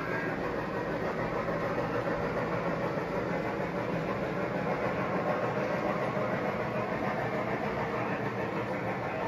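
G scale model train running along the track: a steady rolling noise of wheels on rail with a low hum beneath.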